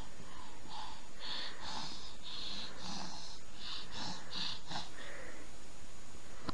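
A baby's breathy, excited laughter: a run of short huffing breaths that stops about five seconds in.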